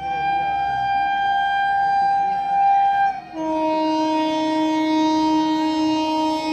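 Horn of an approaching electric train: one long high note for about three seconds, then, after a brief break, a lower, fuller note held on.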